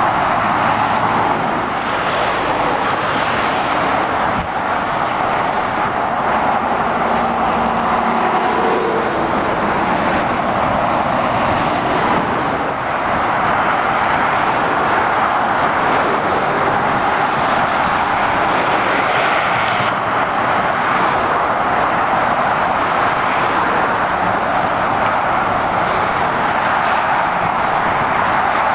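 Steady motorway traffic noise: the tyre roar and engines of lorries, vans and cars passing in a continuous stream.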